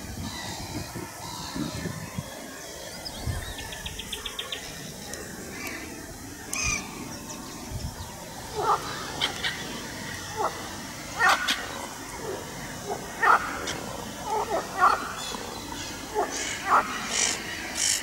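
Crows cawing: scattered short, harsh calls that come more and more often from about halfway through. A short, fast rattle sounds about four seconds in.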